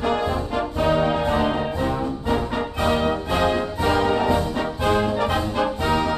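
Orchestral background music carried by brass, over a steady beat.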